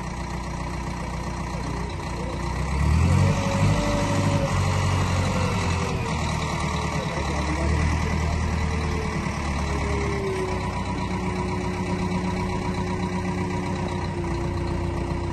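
Diesel engine of a heavy Liebherr earth-moving machine running under load as it works its bucket against a large fallen rock. The engine picks up and grows louder about three seconds in, then keeps running steadily.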